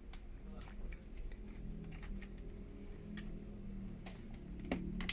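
Small plastic clicks and taps from a laptop hinge cover being pressed and fitted onto the screen hinge: a handful of separate clicks, the sharpest near the end.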